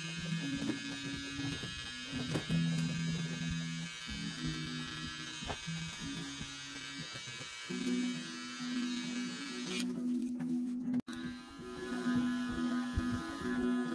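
Cordless hair trimmer buzzing steadily as it cuts and outlines the hair around the ear. About eleven seconds in the sound breaks off for an instant, and a hair clipper then runs on.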